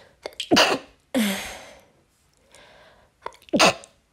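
A woman sneezing repeatedly. A sharp sneeze comes about half a second in, followed by a long, noisy release. Then a short intake of breath, and another sneeze about three and a half seconds in.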